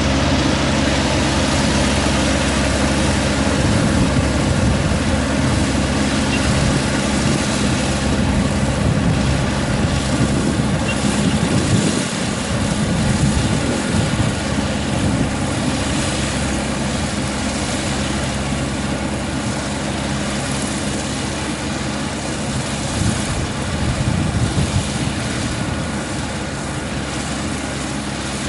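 Kubota ER447 combine harvester running steadily while cutting wheat: a constant engine hum with a broad rush of threshing machinery over it.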